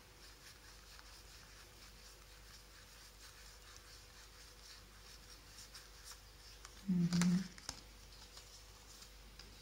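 A Lenormand card deck being shuffled by hand: faint rustling and soft ticking of cards sliding against each other, with cards dealt onto the table near the end. A short hum of voice about seven seconds in.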